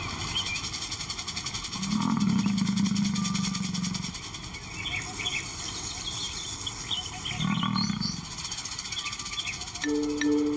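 A lion gives two low, pulsing calls: the first about two seconds long, starting about two seconds in, the second shorter, near eight seconds in.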